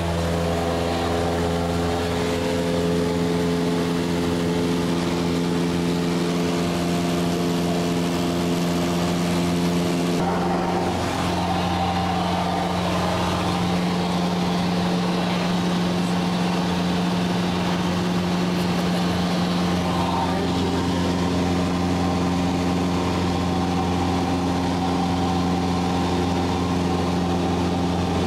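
Cessna's piston engine and propeller droning steadily, heard inside the cabin in flight: a low hum of several even tones under a rushing noise. The upper tones shift slightly about ten seconds in.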